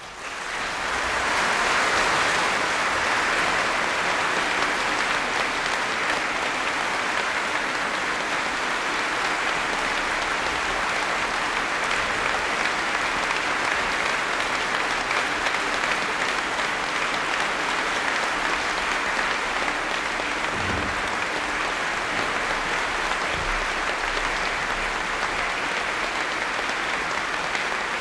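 A concert audience applauding at the end of a performance. The clapping breaks out from silence and swells over about two seconds, then holds steady.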